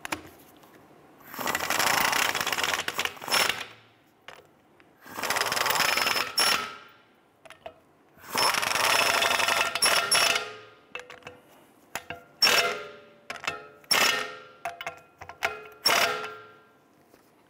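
Impact wrench running the hub bearing bolts down into a steering knuckle: three runs of about two seconds each, then a quick series of short hammering bursts as the bolts snug up.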